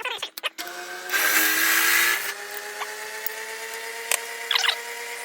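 Drill press motor running with a steady hum while a bit drills a steel part. The bit bites in for about a second starting a second in, then drops back to the plain running hum, with a brief squeak near the end.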